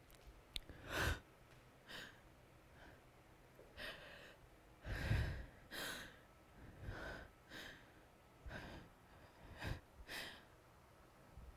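A woman's audible breathing close to a headset microphone: uneven breaths and sighs, about one a second, some catching the mic with a low puff.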